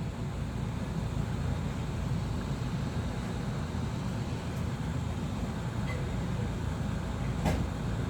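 Hot air rework gun blowing steadily, heating the iPhone's underside to about 150 degrees to soften the adhesive, with one brief click near the end.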